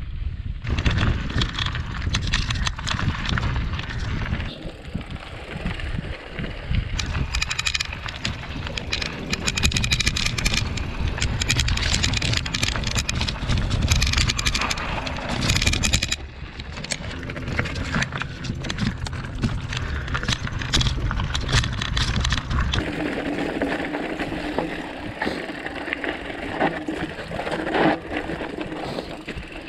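Mountain bike ridden over a loose, rocky desert trail: continuous crunch and rattle of the tyres and frame over stones, with heavy wind rumble on the microphone. The wind rumble eases about 23 seconds in.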